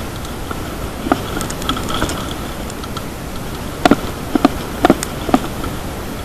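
Mountain bike rolling along a bumpy dirt track, heard from a handlebar-mounted camera: a steady rumble of tyres and rattle with a faint high buzz over it. About four to five and a half seconds in come several sharp knocks as the bike jolts over bumps.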